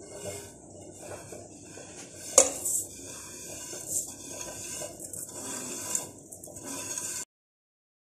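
Oiled couscous grains sliding and being scraped off a ceramic plate into an aluminium pot, with a sharp clink of plate against pot about two and a half seconds in and lighter knocks about every two seconds after. The sound cuts off suddenly near the end.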